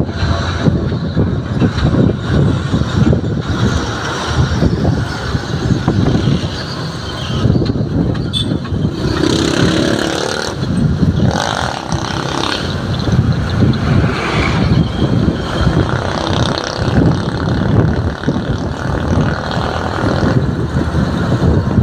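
Self-loader truck driving along a town road, heard from its load deck: engine and road noise mixed with wind buffeting the microphone, steady throughout with no clear change.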